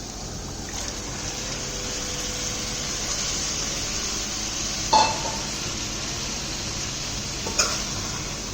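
Chicken pieces sizzling as they cook in hot masala in a pan. A metal utensil clanks against the pan twice, about five seconds in and again near the end.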